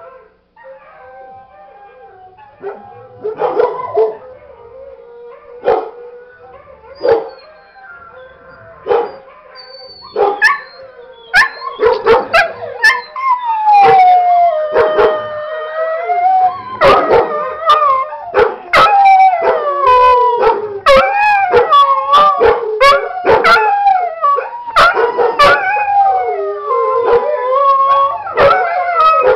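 A dog howling: faint, broken howls at first, then from about ten seconds in long, loud howls that rise and fall in pitch almost without a break. Sharp dog barks from a recording of other dogs barking come in short bursts through it.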